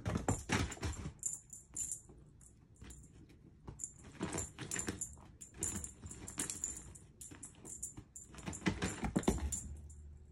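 A cat wand toy rattling and jingling as it is shaken and batted about, in irregular flurries of quick clicks with a high ringing edge.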